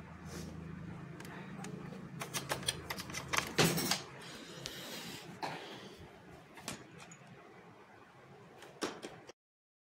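Plastic clicks and knocks from a Philips RM 170 mono cassette player being handled. A low steady hum ends with a loud click about three and a half seconds in. The sound cuts out to silence near the end.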